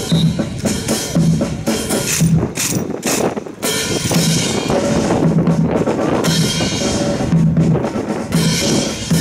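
Marching drums playing a steady beat: a bass drum thumping about twice a second under sharp snare strokes, with a short break a little past the third second.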